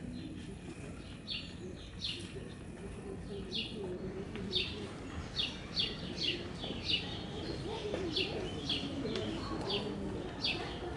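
A small songbird calling over and over with short, falling high chirps, sparse at first, then about two a second from around four seconds in.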